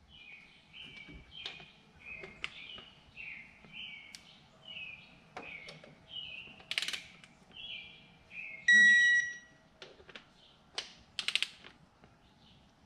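Digital torque wrench ratcheting in short strokes with a few sharp metal clicks, as a timing chain tensioner bolt is tightened to 18 ft-lb. About nine seconds in, the wrench beeps steadily for about a second, signalling that the set torque has been reached.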